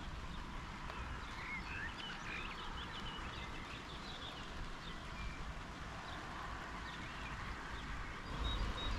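Birds chirping outdoors, short scattered calls over a steady background hiss and low rumble. The low rumble grows louder near the end.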